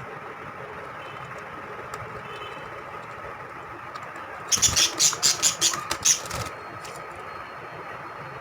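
Lovebirds squabbling: a loud burst of rapid, harsh squawks lasting about two seconds, halfway through, over a steady background hum.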